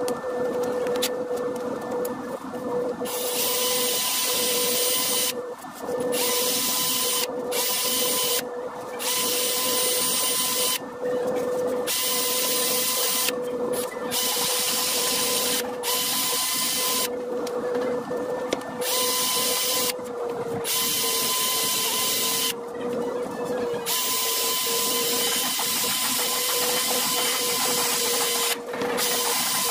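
Small electric polishing tool running with a steady hum. A hissing scrubbing noise switches on and off every second or few as the spinning head works against the metal.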